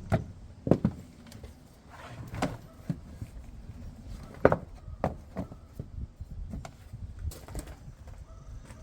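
Scattered knocks and clunks, several seconds apart and irregular, the loudest about four and a half seconds in.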